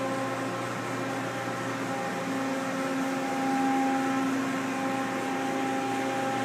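Steady electrical and mechanical hum with several fixed tones from a powered-up Mazak Quick Turn 20 CNC lathe standing at idle, its cooling fans running and its spindle not turning.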